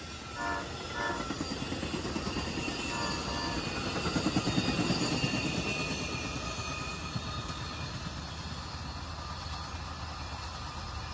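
Amtrak passenger cars rolling past on the rails, their wheels clacking rhythmically over the joints. The sound is loudest about four to five seconds in, then fades into a low rumble as the last car goes by.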